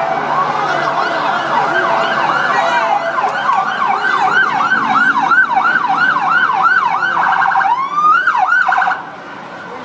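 Police van siren: a slow wail that gives way to a faster yelp of about three sweeps a second, then a brief rapid warble and one rising sweep before it cuts off suddenly about nine seconds in.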